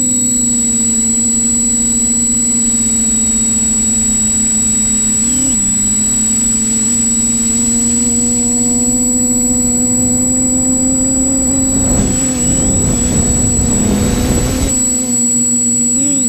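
TBS Discovery Pro quadcopter's electric motors and propellers in flight, a loud steady hum whose pitch dips and wobbles briefly about five seconds in. A rushing noise covers the hum from about twelve to fifteen seconds in.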